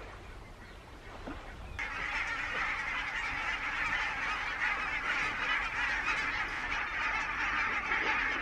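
A large flock of geese honking in a dense, continuous chorus that comes in suddenly about two seconds in, raised by hundreds of geese spooked by an attacking eagle.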